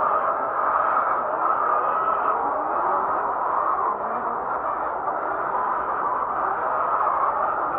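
A large flock of laying hens clucking and calling all at once, a steady, dense din of many overlapping voices.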